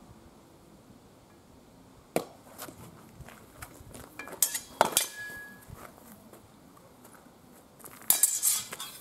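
Steel sparring swords clashing against each other and against bucklers in sword-and-buckler sparring: one sharp clash about two seconds in, a quick run of clashes around the middle with a short metallic ring after it, and a rapid flurry near the end.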